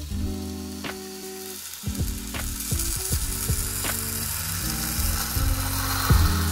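Croissant dough sizzling between the hot plates of a Cuisinart waffle maker pressed shut, with a few sharp clicks. Background music with held chords plays over it.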